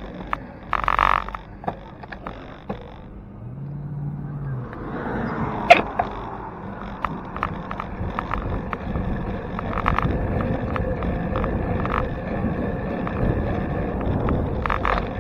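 Bicycle riding noise picked up by a handlebar-mounted camera: scattered clicks and rattles as the bike rolls over the road. One sharp knock about six seconds in is the loudest. Tyre and wind noise build up from about a third of the way in.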